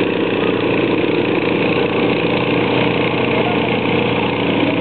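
Small garden tractor engine running steadily under load, pulling a weight-transfer sled.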